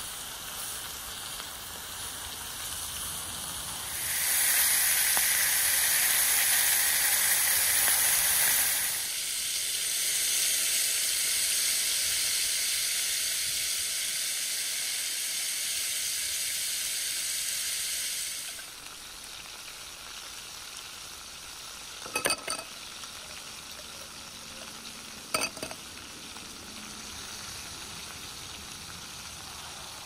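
Sausage, shrimp and vegetable skewers sizzling in a hot cast-iron grill pan. The sizzle gets much louder about four seconds in, eases after about nine seconds, and falls to a fainter hiss after about eighteen seconds. Two brief sharp clicks come in the quieter stretch, about three seconds apart.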